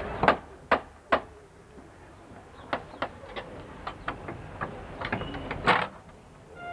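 Clicks and knocks of a key and latch being worked on a heavy wooden door: three sharp knocks in the first second, then a run of lighter metallic clicks, and a louder clack near the end as the latch gives.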